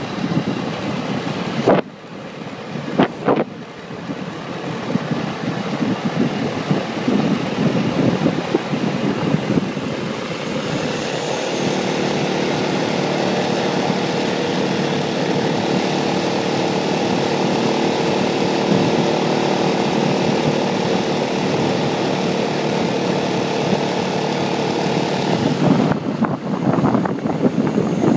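Motorcycle riding on the open road: wind rushing over the microphone with the engine running beneath it, settling into a steady drone at cruising speed from about eleven seconds in. Two short knocks near the start.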